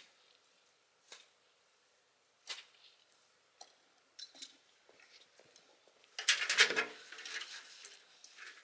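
A feed bucket and its feed being handled at feeding time: scattered light clicks and knocks, then a louder rattling rustle about six seconds in.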